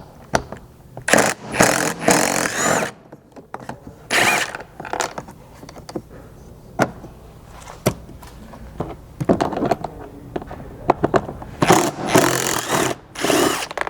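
A T30 Torx driver backing screws out of a Jeep Wrangler JL rear door panel: several noisy bursts about a second long, with scattered sharp clicks of the tool and screws in between.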